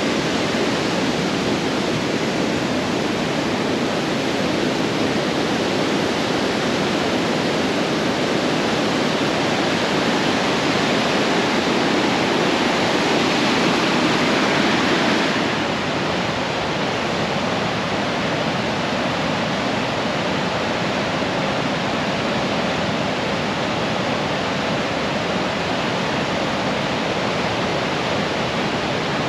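Steady rushing of the Niagara River rapids, growing a little louder over the first half, then dropping abruptly to a slightly softer, duller rush about halfway through.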